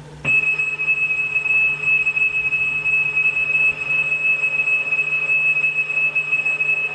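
Leader tone of a computer software cassette played back on a cassette deck: one steady high-pitched tone that starts about a quarter second in and holds evenly.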